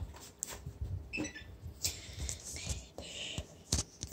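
Phone handling noise: fingers rubbing and tapping over the phone's microphone, a scatter of soft clicks and rustles.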